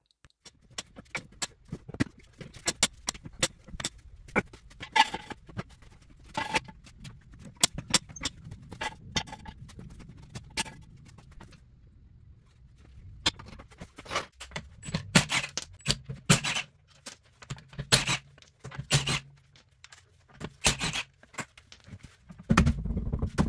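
Irregular clinks, taps and scrapes of hand tools and metal strut parts being handled, with a short pause about halfway through.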